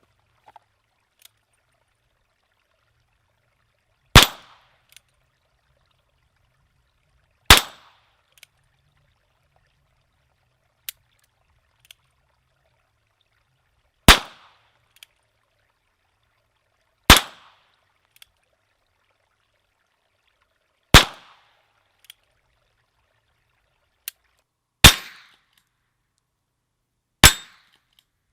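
Ruger Single Six .22 revolver fired seven times, a few seconds apart, each shot with a short ringing tail and faint clicks in between.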